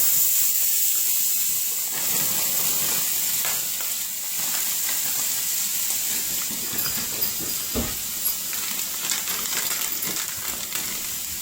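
Precooked steak and chicken strips sizzling in melted butter in a hot skillet, a steady hiss with scattered small clicks and taps, and one dull knock about eight seconds in.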